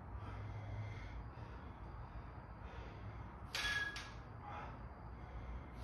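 A lifter's breaths during bench press reps: short, forceful puffs, the loudest a little over halfway through, over a low steady hum.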